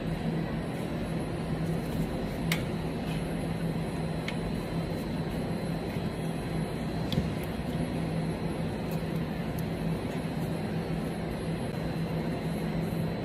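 Steady low mechanical hum of running machinery, with a few light metallic clicks from parts on a truck's front steering knuckle being handled.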